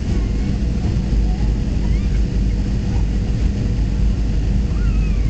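Steady cabin noise of a Boeing 737-300 on final approach: the low rumble of its CFM56-3 turbofan engines and the rushing airflow, with a faint steady hum over it.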